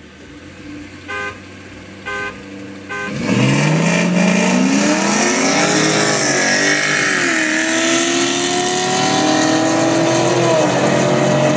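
A car horn toots three times as the start signal, then a V8 engine launches hard at full throttle, its pitch climbing through the revs and dropping at two upshifts, heard from inside the car's cabin.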